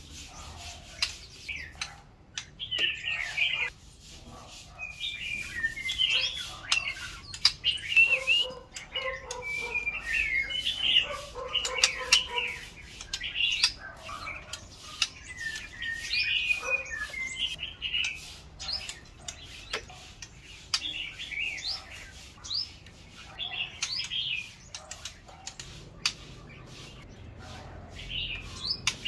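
White-rumped shama singing: a long run of varied, gliding whistled phrases with short sharp clicks between them and a few brief pauses.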